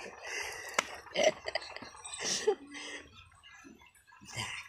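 Two small dogs play-fighting: short scattered growls and scuffling, with a sharp click about a second in, dying down a little after three seconds before one more short growl near the end.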